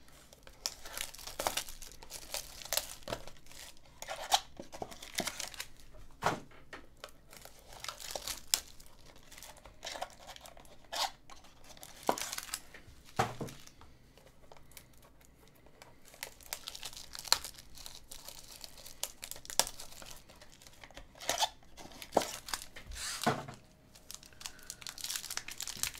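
A trading-card mini-box and its silver foil packaging being torn open and crinkled by hand: a run of short, irregular tearing and rustling sounds.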